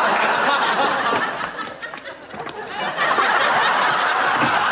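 Studio audience laughing, dying down about two seconds in and swelling again a second later.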